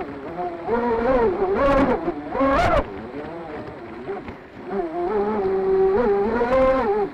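Electric RC boat motor whining, its pitch rising and falling repeatedly as the throttle is worked, with a sharp surge and splash about three seconds in and water rushing past the hull.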